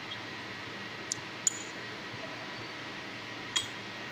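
Small steel parts of a roller burnishing tool clinking as they are handled: three short metallic clicks, about a second in, half a second later (the loudest, with a brief ring), and near the end, over a steady workshop hiss.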